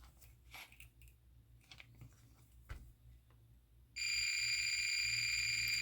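Multimeter continuity tester beeping: one steady, high-pitched beep of nearly two seconds, starting about four seconds in and cutting off abruptly, the sign that the probes are bridging connected contacts on the XLR connector. Before it, faint light clicks of the probes being placed on the pins.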